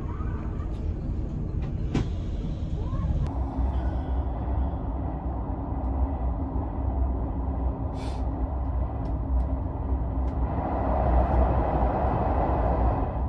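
Steady low rumble of a moving vehicle heard from inside its cabin: a bus at first, then, after a cut about three seconds in, a moving train carriage, with a hiss swelling near the end.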